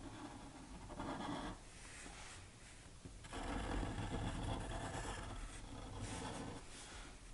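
Black marker and pencil drawing on paper: faint scratchy strokes, a short one about a second in and a longer stretch from about three to six and a half seconds.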